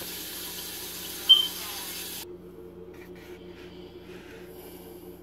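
Quiet kitchen room tone with a steady low hum and one short, sharp click about a second in. The background hiss drops away suddenly partway through, leaving the hum and a few faint handling noises.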